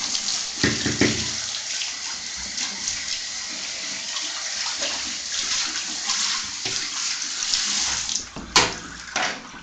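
Water from a handheld shower spraying steadily onto a wet dog and the shower tray. The spray stops about eight seconds in, followed by two sharp knocks.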